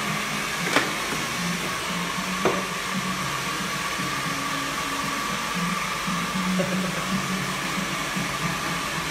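A hair dryer running steadily, an even rushing hiss with a thin steady whine, over background music. Two short clicks come in the first few seconds.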